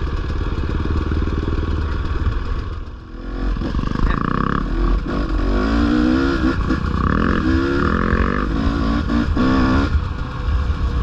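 Dirt bike engine under way. It drops off briefly about three seconds in, then revs up and down over and over as the throttle is worked.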